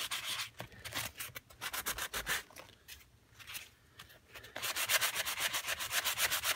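Hand-held sanding block scrubbed quickly back and forth over a painted, fabric-covered book page, several strokes a second, with a few short pauses before an unbroken run of strokes near the end. The block is worn and barely lifts the paint, and its user judges it due for replacement.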